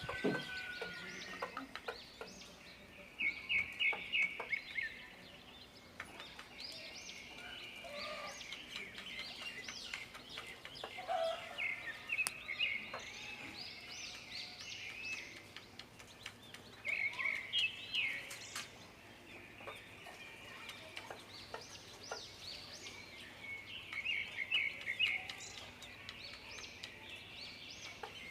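Day-old chicks peeping continuously in short high chirps, with a mother hen clucking among them, typical of a hen calling her chicks to feed. Quick runs of notes come in several clusters, a few seconds apart.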